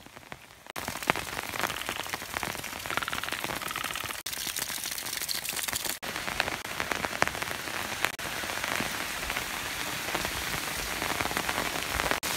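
Rain falling and pattering on the ground and leaves: a steady hiss with many small drop ticks. It starts up sharply a little under a second in.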